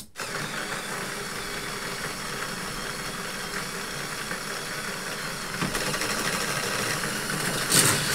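A small electric motor in a LEGO Loop Coaster set switches on with a click and runs with a steady whirr and gear rattle, driving the lift that raises the cars up the tower. Near the end a louder rattling rush follows as the cars are released and run down the plastic track and through the loops.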